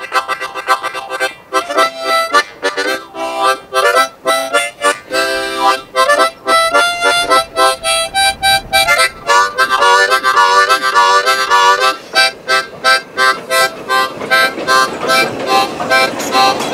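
Harmonica playing a fast, rhythmic tune of short chords and notes.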